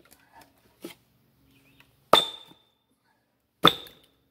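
Two hard metal-on-metal strikes about a second and a half apart, each with a short ring: a hammer driving a steel splitting wedge down into a dense black locust round.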